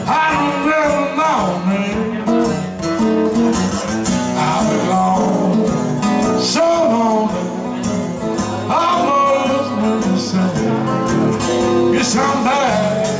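Live acoustic blues played by a guitar duo: a lead guitar plays bending licks over a steady rhythm guitar.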